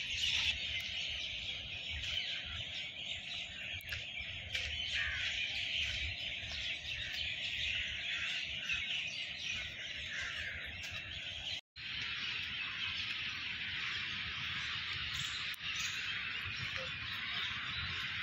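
Steady outdoor chorus of high chirping from the trees, with an uneven low rumble of wind and handling on the microphone as the camera moves. The sound cuts out for an instant about two-thirds of the way through.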